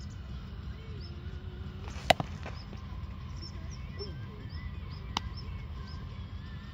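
A baseball bat hits a pitched ball with a single sharp crack about two seconds in, followed by a fainter sharp click about three seconds later. Faint bird chirps and a steady low rumble sit underneath.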